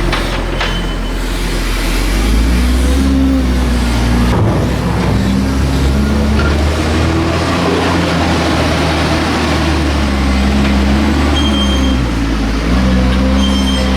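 Heavy diesel tractor engines working at a maize silage clamp, the revs rising and falling with the load.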